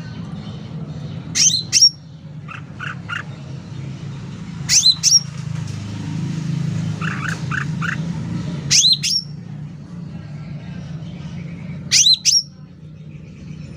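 Cucak ranting calling loudly. Four sharp, high-pitched calls of two or three fast notes come about every three to four seconds, with softer groups of three quick, lower notes between them, over a steady low hum.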